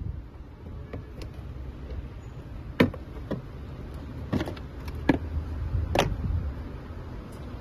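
Plastic trim clips snapping loose as the cover panel at the front of a Tesla Model 3 frunk is pried and pulled off: about five sharp snaps over a few seconds, the loudest about a third of the way in, over a low rumble of handling noise.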